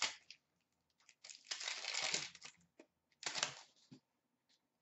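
Crinkling and rustling of a trading card pack's wrapper and cards being handled, in two bursts: one about a second long, then a shorter one.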